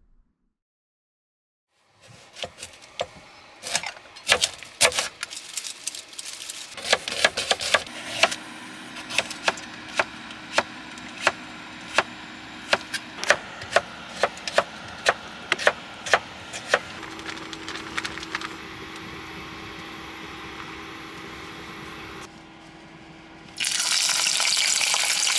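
After a short silence, a kitchen knife chops carrot on a cutting board, the strokes irregular at first, then a steady beat of about three every two seconds, over a steady hum. About two seconds before the end, a small fish in a pot of hot oil starts frying with a loud, even sizzle.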